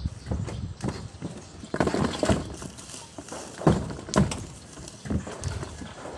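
Irregular hollow knocks and thumps, several of them sharp and loud, over light rustling: footsteps and handling of picked mangoes on a rooftop close to the microphone.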